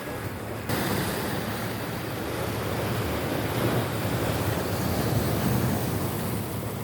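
Sea surf washing ashore, with wind buffeting the microphone. The rushing noise jumps up suddenly about a second in and is loudest in the second half.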